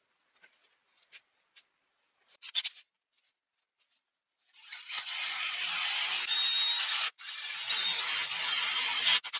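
Power drill boring through the hardened steel of an old saw blade, the bit cutting with a steady grinding hiss that starts about halfway in, stops for a moment, then carries on. Before it, a few light taps and clicks.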